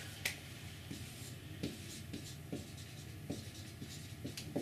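Faint writing: pen strokes scratching across a surface, with a few light taps.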